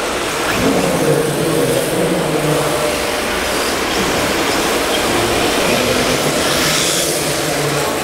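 1/10-scale RC drift cars running and sliding around an indoor track, their motors and tyres heard over the steady background noise of a large hall.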